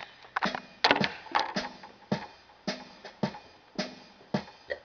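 Electronic keyboard's built-in drum beat playing: a steady rhythm of drum hits, about two a second, with a few extra hits in between.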